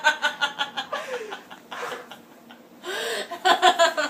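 A person laughing: a run of quick, rhythmic chuckles, a breathy pause near the middle, then another run of chuckles near the end.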